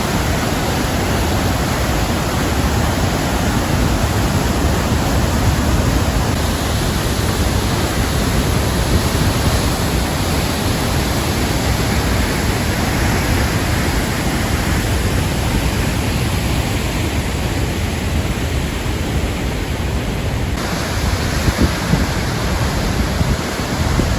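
Waterfall: a loud, steady rush of falling water, with an abrupt change in tone a few seconds before the end.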